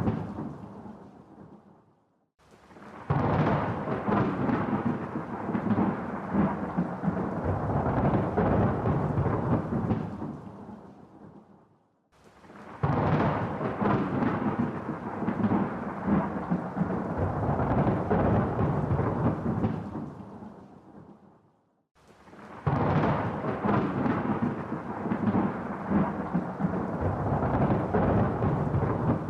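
Thunder rolling: three long rumbles, each starting suddenly, rumbling for several seconds and fading away, about every ten seconds.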